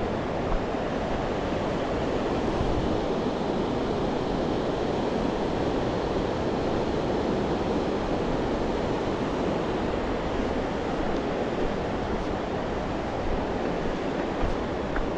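Steady, loud rush of fast-flowing mountain river water, the Parvati River, running unbroken.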